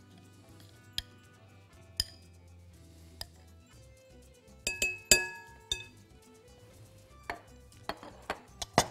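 A metal spoon and glass jar clinking against a glass mixing bowl as a mashed legume paste is scraped out: scattered sharp clinks, with a loud cluster about five seconds in and a few more near the end.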